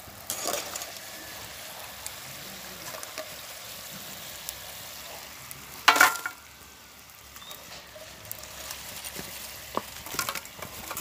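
Potato French fries deep-frying in hot oil, a steady sizzle. About six seconds in there is a loud sharp knock as fried pieces are tipped from the wire skimmer onto a steel plate, and there are a few lighter clicks near the end.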